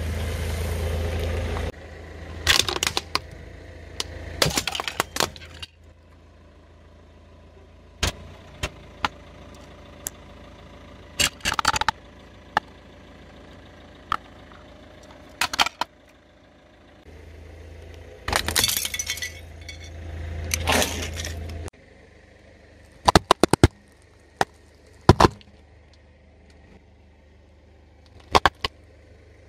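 A car's tyres crush a run of brittle objects, including hard plastic and carrots, giving a string of sharp cracks, snaps and crunches. Some come singly and some in quick clusters. The car's engine runs low under the opening seconds and again about two-thirds of the way through.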